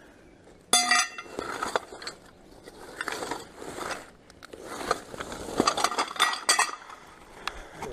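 Metal scaffolding fittings clanking, clinking and scraping together as a bag of them is handled, with a sharp ringing clank about a second in and more clatter later on.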